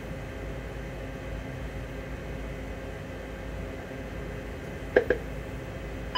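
CRJ-900 auxiliary power unit running steadily as it finishes its start and settles at 100% RPM, heard as an even hum inside the cockpit. A short double click comes about five seconds in.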